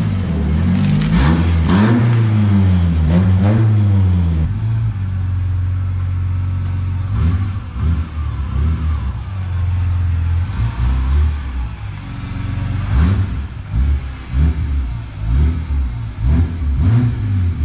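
Nissan Hardbody (D21) pickup's engine revving, its pitch rising and falling several times over the first few seconds, then running more steadily after a cut, with some uneven noise over it.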